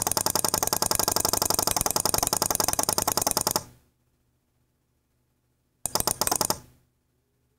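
Fast, even clicking buzz from the light-switching electronics, in two bursts: one about three and a half seconds long, then a shorter one of under a second near the end. Each burst comes while the pink light is lit.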